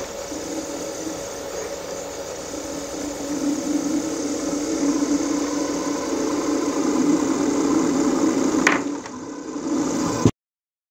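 Small induction motor driven by a Mitsubishi A700 inverter in sensorless vector torque control, humming with a steady low tone that slowly grows louder while the drive holds torque against a hand gripping the shaft. A sharp click comes near the end, and the sound then cuts off suddenly.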